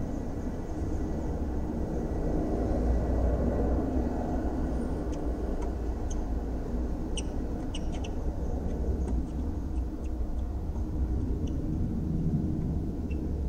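Steady low rumble heard from inside a parked car, with a few faint, short high ticks in the middle and once near the end.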